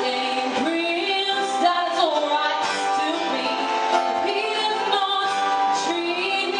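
A woman singing a song into a microphone, accompanying herself on a strummed acoustic guitar.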